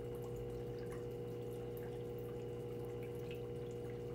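Reef aquarium equipment humming steadily, with faint trickling and dripping of circulating water.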